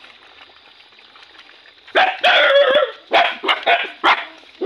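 Young dogs squabbling over food: about two seconds in, one gives a loud drawn-out yelping cry, then short sharp barks and yelps follow about three a second.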